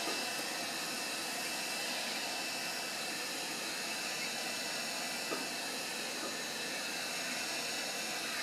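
Hot air rework station handpiece (heat gun) blowing a steady hiss of hot air onto the display glass to soften its adhesive.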